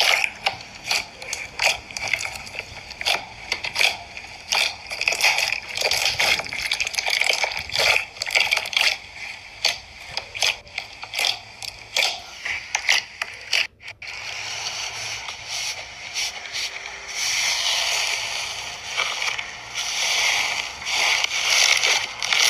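Slime being squished and poked by hand, giving a fast run of sticky clicks and wet pops. After a cut about two-thirds of the way through, it changes to a denser, steadier crackling.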